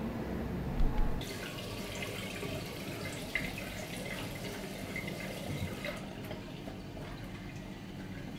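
Kitchen tap running a thin stream of water into a stainless-steel sink, a splashing hiss that starts about a second in and turns duller about six seconds in. Just before the water starts there are two low thumps.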